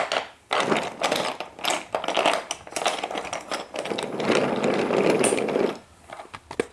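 Wooden toy railway trucks rolling past on wooden track, a rattling rumble with many quick clicks over the track joints, which dies away near the end.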